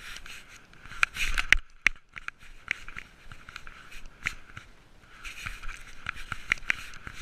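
Close rustling, scraping and sharp clicks from a GoPro strapped to a cat, the harness and fur rubbing against the camera as the cat moves. A loud scraping burst comes about a second in and a brief quiet follows near two seconds, then scattered clicks.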